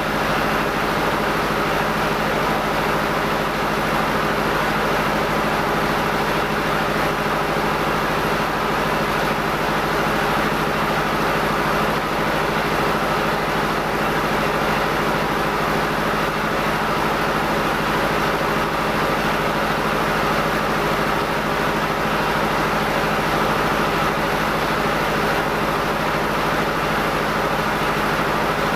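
Old N50 rice mill, with its husker and polisher, running steadily under load: a continuous mechanical din over a steady low hum, with no change in speed.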